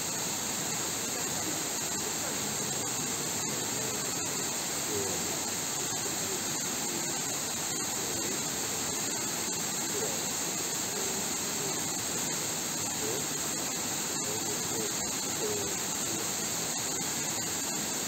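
Steady rush of water from a tall, narrow waterfall falling down a rock face. Faint voices of people can be heard in the background.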